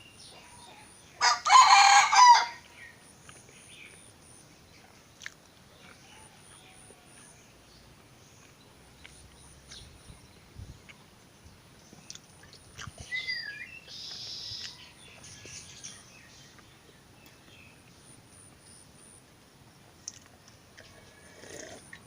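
A rooster crows once, loudly, about a second in. A softer bird call follows about halfway through.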